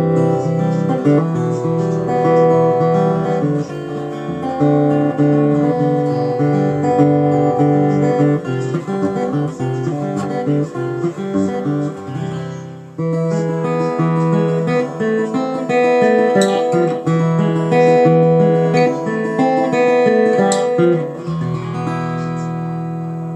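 Ovation Applause AE148 acoustic-electric guitar, with a laminated spruce top and roundback body, played in a run of chords. The playing pauses briefly about halfway and ends on a chord left to ring out.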